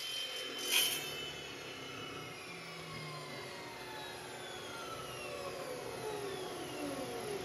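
A King Canada 14-inch cut-off saw with an Evolution blade coasting down after the cut: a whine that falls steadily in pitch as the motor and blade slow, with a brief knock just under a second in.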